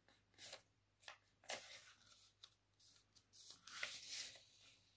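A sheet of paper being folded diagonally by hand and its crease pressed flat: faint, scattered rustles and crinkles, with the longest and loudest stretch near the end as the fold is smoothed down.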